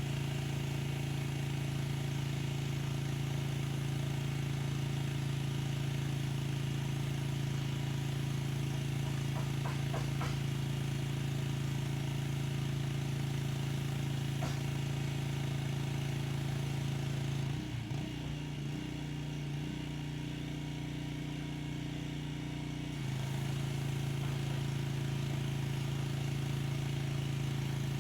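Pressure washer running steadily with a low hum and spray hiss. About two-thirds of the way in, the hiss drops away and the hum shifts for about five seconds, then the full spraying sound returns.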